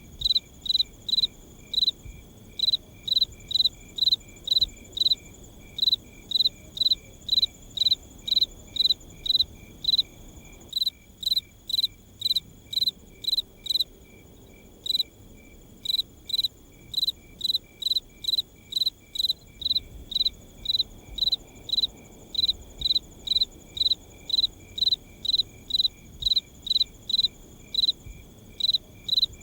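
Cricket chirping in a steady, even rhythm of about two high chirps a second, over a faint low background hiss of night ambience.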